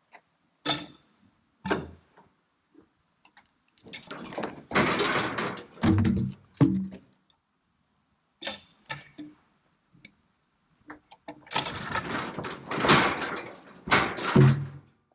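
Pine logs knocking and rolling against one another in irregular bursts, with heavy thumps, as they are moved by a tractor grapple.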